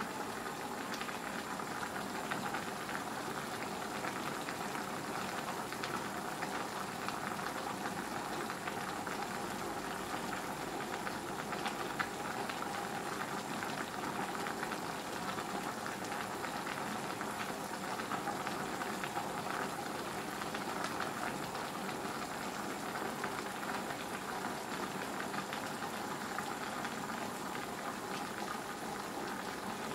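A pan of mixed vegetables cooking on a gas hob, the liquid and olive oil underneath bubbling steadily with fine crackles and pops.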